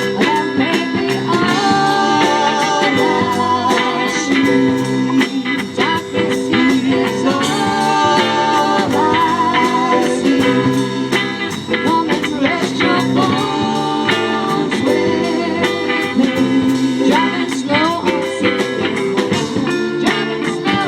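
Live band playing a pop-soul cover: a lead vocal sung over electric guitar, bass and a drum kit keeping a steady beat.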